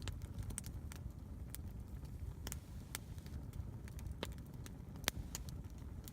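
Campfire wood burning and crackling, with sharp irregular pops over a low steady rumble; the loudest pop comes about five seconds in.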